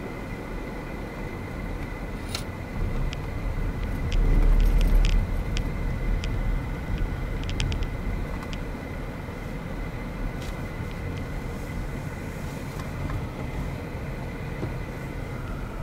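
Mercedes-Benz car driving, heard from inside the cabin: a steady low rumble of engine and road noise, louder for about a second some four seconds in, with scattered sharp clicks.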